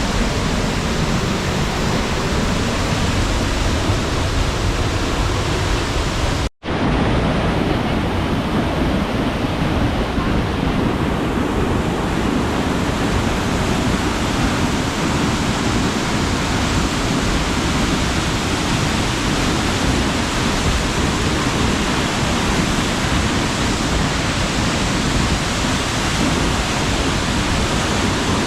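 Steinsdalsfossen waterfall at close range: a loud, steady rush of falling water. It cuts out for an instant about six and a half seconds in.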